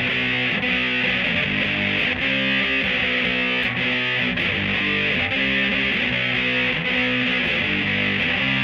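Electric guitar played through a Big Muff fuzz pedal into a Bugera V22 tube amp and a 1960 Rola Alnico 5 12-inch speaker: a string of sustained, fuzzy chords.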